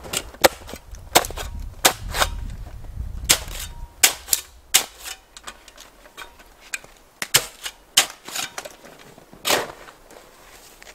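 Snow shovel chopping and scraping into hard, crusted snow: a run of sharp, irregular crunches and knocks, a fraction of a second to about a second apart, some of them loud. A low rumble sits under the first few seconds.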